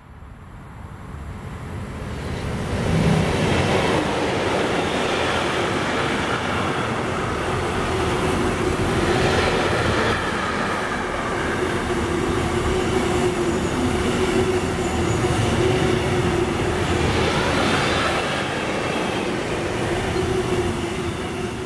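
A freight train hauled by an electric locomotive passing close by. It grows louder over the first three seconds as the locomotive approaches, then settles into a long, steady rumble and rattle of container and tank wagons on the rails, with a steady hum running through it.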